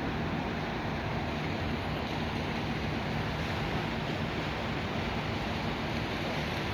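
A fishing boat's engine running steadily, a low hum under a constant rush of water and wind.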